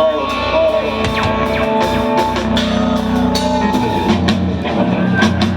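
Rock band playing live: drum kit and electric guitar, loud and driving.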